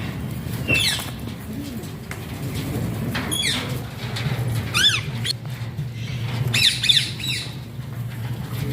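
Alexandrine parakeet squawking: short, harsh calls, most of them falling in pitch, one at a time and then in a quick cluster near the end, over a steady low hum.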